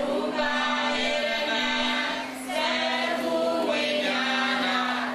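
Buddhist worshippers chanting their prayers, a group of voices singing in long held phrases with a brief pause about two seconds in.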